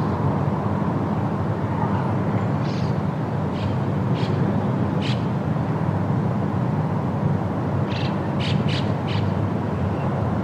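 Steady roar of the Rhine Falls' rushing water, a dense rumbling noise. A few short, high chirps or calls cut through it in two clusters, around three to five seconds in and again near eight to nine seconds.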